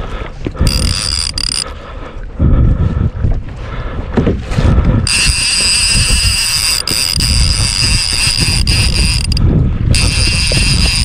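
Fishing reel drag whining in long steady stretches as a hooked fish pulls line off, the longest lasting about four seconds, with wind buffeting the microphone underneath.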